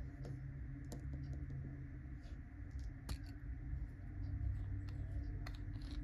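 Scattered small clicks and taps from handling a Parker 61 fountain pen, its metal cap set down on a cutting mat and the barrel gripped and turned, over a steady low hum.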